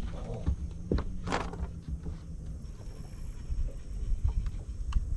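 Fishing rod and reel being handled while pitching a bait, over a low wind rumble on the microphone. There are a few light clicks and one short hiss about a second in, and a low steady hum stops about halfway.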